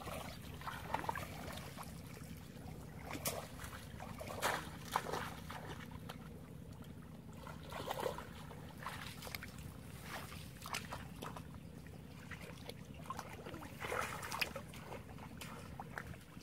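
Shallow muddy water sloshing and splashing as people wade through a flooded rice paddy and push a woven fish trap down into the water, in short scattered splashes over a steady low rumble.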